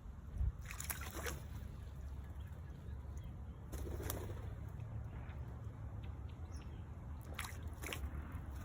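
Small birds at a garden bird bath: three brief flurries of wing flaps, about a second in, near the middle and near the end, over a low steady rumble.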